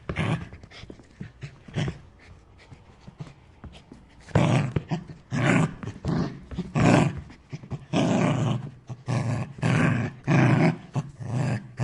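A dog barking: a couple of single barks in the first two seconds, then from about four seconds in a steady run of barks, about two a second.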